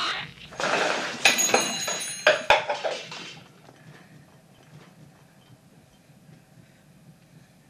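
Chestburster creature's shrill, hissing screech for about three seconds, piercing in the middle, then quiet room tone.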